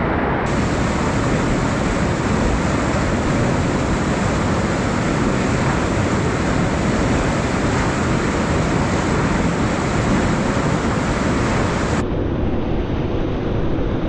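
Loud, steady rush of a whitewater rapid pouring over rocks. Its tone changes abruptly about half a second in and again near the end, where the footage cuts between cameras.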